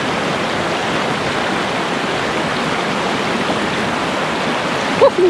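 Steady rush of a fast mountain river running over rocks and riffles, an even roar with no break. Near the end there is one short, sharp sound.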